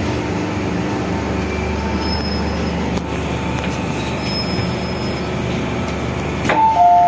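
MTR Island Line train heard from inside the car as it runs into a station: a steady rumble and hiss with a couple of brief, faint, high wheel squeals. About six and a half seconds in comes a click, then a two-tone door chime starts, alternating between a higher and a lower note.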